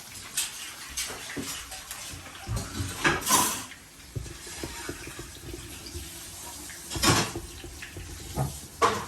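Water running and splashing in a kitchen sink, with scattered knocks and clatters, loudest in two bursts about three seconds in and about seven seconds in.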